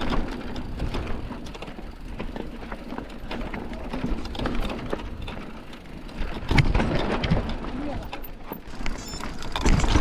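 Mountain bike descending a dry, rocky dirt singletrack, heard from a camera on the bike: tyres crunching over dirt and stones, with the chain and frame clattering over bumps and wind on the microphone. It gets louder and rougher about two-thirds of the way in.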